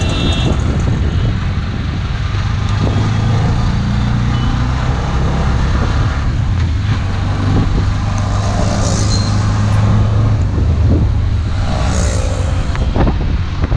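Auto-rickshaw's small engine running steadily as it drives through city traffic, its low hum rising and falling a little with the throttle, under a constant rush of road and traffic noise.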